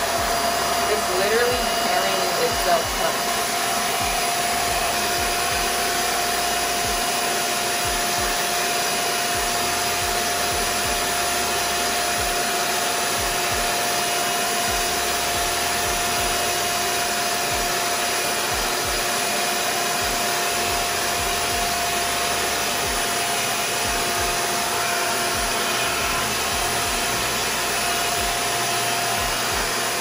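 RevAir reverse hair dryer running steadily, its suction drawing a section of wet hair into the tube to dry it. A constant whoosh of air with a steady mid-pitched whine.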